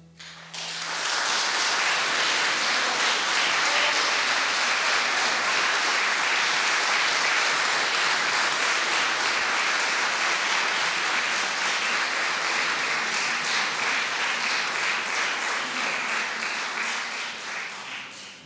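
Large audience applauding: the clapping breaks out about half a second in, holds steady and thins out near the end.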